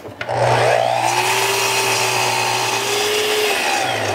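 Sliding compound miter saw starting up with a sharp onset, then running steadily as its blade is lowered through a wooden board to cut it to length.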